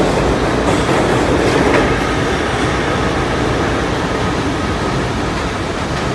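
New York City Subway R142-family train leaving the station and running off down the tunnel: a steady rumble and clatter of wheels on rail that slowly fades, with a faint steady whine from about two seconds in.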